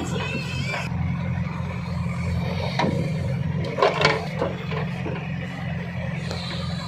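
Heavy diesel machinery engine running steadily with a low drone. There are sharp metallic clanks a little under three seconds in and a cluster around four seconds in.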